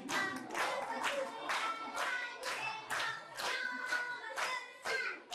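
Steady rhythmic hand clapping, about two claps a second, with a voice singing a melody in time with the claps.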